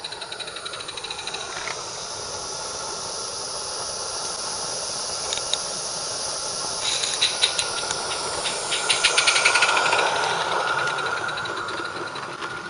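16mm-scale live-steam model locomotive running past with its train: a steady hiss of steam with rapid ticking. It grows louder as the engine comes by, loudest about nine to ten seconds in, then fades.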